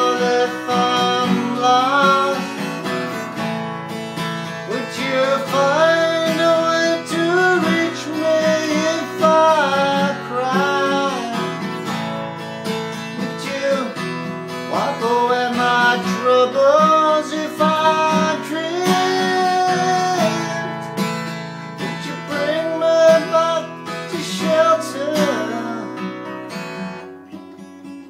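A man singing over a strummed acoustic guitar. Near the end the voice drops out and the guitar plays on more quietly.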